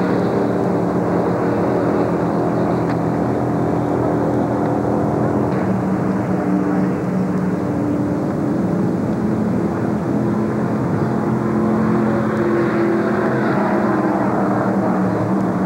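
Several NASCAR-style stock car V8 engines running at speed on the track, making a steady drone whose pitch shifts slowly as the cars pass and pull away.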